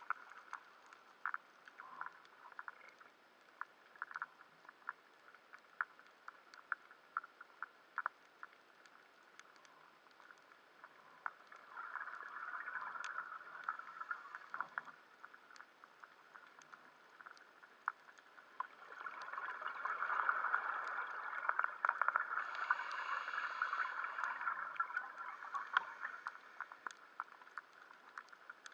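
Underwater sound from a diving camera: scattered sharp clicks throughout, and two stretches of bubbling hiss from a diver exhaling, a short one and then a longer, louder one.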